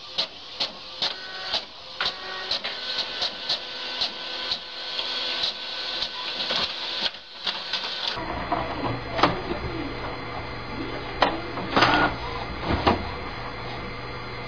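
A printer running, with a rapid series of sharp mechanical clicks over its whir. After about eight seconds the sound changes to a steady low hum with a few sharp clicks and knocks.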